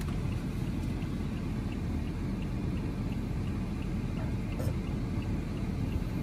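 Cabin noise of a Toyota Tundra pickup driving slowly: a steady low rumble of engine and road, with a faint, quick regular ticking of about three ticks a second.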